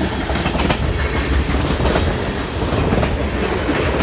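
Freight train rolling through a grade crossing: a steady low rumble with the clickety-clack of wheels over rail joints as the last cars pass.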